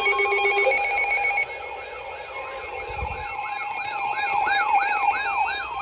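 Several weather alert radios sounding their alarms at once for an incoming warning. A warbling, siren-like alarm sweeps up and down about three times a second over steady alert tones, and a faster beeping tone stops about a second and a half in.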